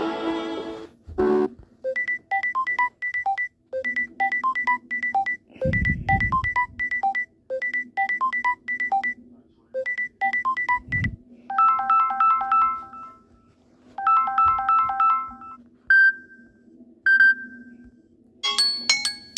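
Phone ringtones played in turn. A short electronic beeping melody repeats five times, about every two seconds, then come two quick runs of rapid beeps, two single chimes, and a new chiming tone that starts near the end.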